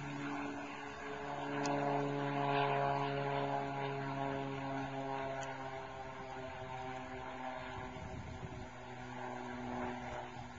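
Cessna AgTruck crop-duster's piston engine and propeller droning as it makes a low pass, loudest about two to three seconds in, then falling gradually in pitch and fading as it flies on past.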